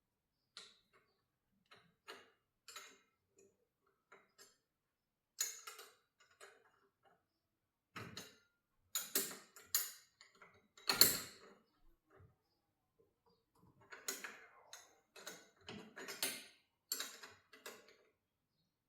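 Irregular metal clicks and clinks of tools and hardware being handled on a garage door's cable pulley and torsion shaft during adjustment, with a louder clatter about eleven seconds in.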